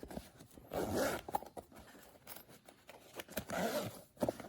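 Product packaging being opened and handled by hand: a few bursts of scraping and tearing with small clicks.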